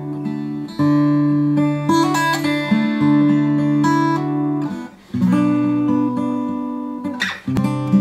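A 1965 Guild D50 dreadnought steel-string acoustic guitar playing ringing chords, picked up by a Sony A6400 camera's microphone. The chords ring out with a brief break about five seconds in and a sharp strum near the end.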